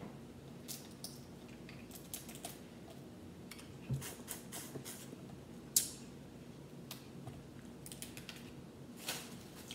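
Boiled crawfish being peeled by hand: shells cracking and snapping in scattered, irregular clicks, the sharpest about six seconds in.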